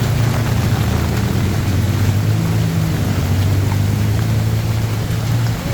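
A vehicle engine running close by with a steady low hum, over the wash and splash of floodwater and rain; the hum dips briefly near the end.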